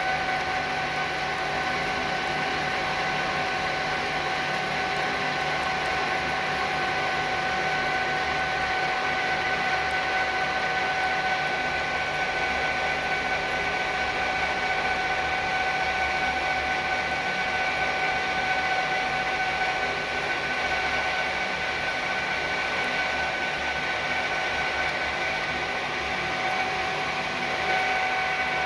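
A metalworking machine tool running steadily, a continuous mechanical noise with a steady whining tone and no change in speed.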